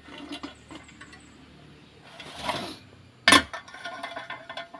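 Metal clinks and light taps of a socket tool and bolts being handled against a motorcycle crankcase, with one sharp, loud knock about three seconds in.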